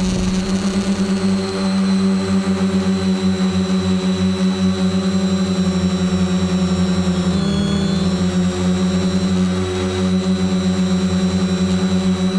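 Quadcopter's electric motors and propellers running in a steady hover, a droning hum with a thin high whine above it and a fast flutter, heard from the camera mounted on the craft. The pitch dips briefly about seven and a half seconds in, then settles back.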